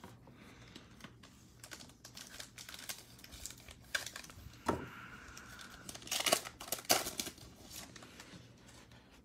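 Foil trading-card pack wrappers crinkling and tearing as packs of Panini Mosaic basketball cards are ripped open by hand, in short irregular rustles that are loudest about six to seven seconds in.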